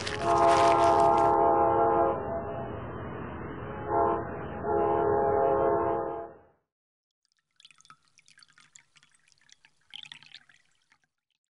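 Train horn sounding as a chord: a long blast, a brief toot, then another long blast, over the noise of the moving train. The sound cuts off about six and a half seconds in, leaving only faint crackling.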